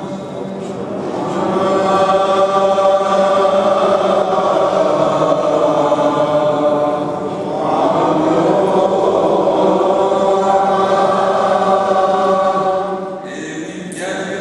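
Liturgical chant of the Mass, sung in two long sustained phrases with a short break about halfway through; it falls away near the end.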